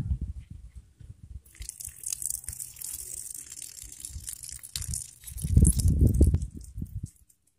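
Water running from an outdoor tap and splashing down, a steady hiss that starts about a second and a half in. A loud low rumble comes about two-thirds of the way through.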